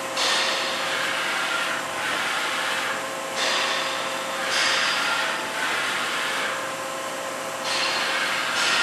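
Daewoo ACE-H100 horizontal machining center running, a steady machine hum overlaid with hissing that swells and fades every second or two.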